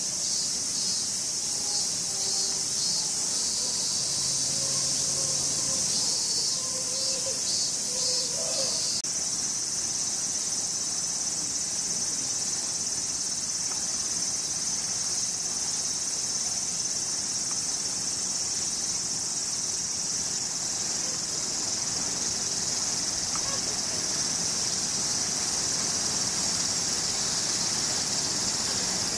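Cicadas shrilling in a loud chorus, pulsing for the first nine seconds or so and then holding a steady drone.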